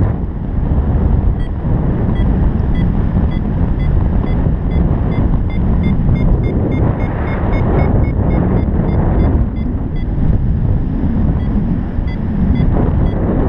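Strong wind buffeting the camera microphone in flight, with a paragliding variometer's short high beeps repeating through it. The beeps quicken to about five a second midway, the sign of the glider climbing in lift, then fade out and return faintly near the end.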